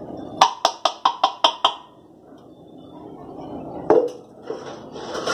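A metal utensil knocked rapidly against an iron cooking pan, about seven sharp ringing knocks in a second and a half, with one louder knock about four seconds in. These are typical of paste being tapped off a spoon into the pan.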